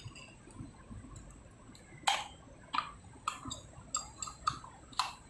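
A string of short, sharp clicks and light clinks, about eight of them in the last three seconds and irregularly spaced: small hard parts being handled, as the bit is fitted into a hammer drill and its accessories are handled.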